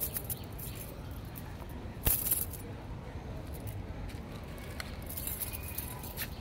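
A dangled string cat toy being batted and grabbed by a cat: scattered clinks, jangles and rustles, with one sharper knock about two seconds in.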